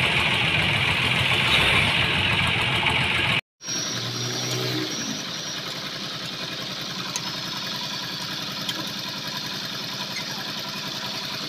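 An engine running steadily at idle, cut off by a brief dropout about three and a half seconds in. A couple of faint metal clicks come from spanners working the clutch cover bolts.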